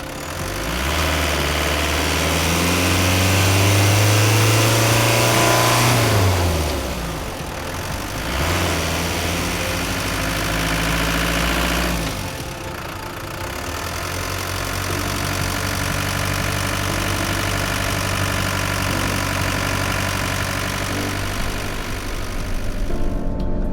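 Renault Master II van's diesel engine revving up and holding at higher revs, then dropping back. It rises again for a few seconds and then settles into steady running at low revs.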